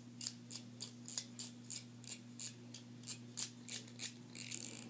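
Scissors snipping in quick repeated cuts, about three a second, with a short rustle near the end.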